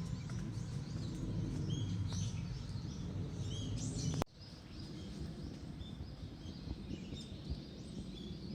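Small birds chirping and calling, short quick notes over a steady low rumble. The background drops a little about four seconds in, and the chirping carries on.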